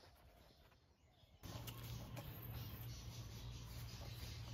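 Near silence for about the first second and a half, then a faint steady low hum with a few light ticks.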